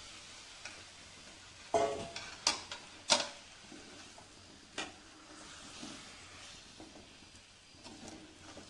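Metal spoon stirring lemon pieces into a chili masala in a metal pot, knocking against the pot about four times between two and five seconds in, the loudest near three seconds, over a faint sizzle from the pot on low heat.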